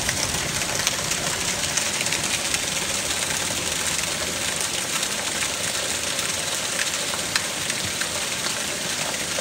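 Heavy rain pouring down steadily: a dense, even hiss made of countless small drop impacts on the ground and leaves, holding at one level throughout.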